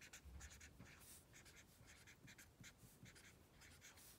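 Felt-tip marker writing on paper: faint, quick scratchy strokes, several a second, as letters are written out.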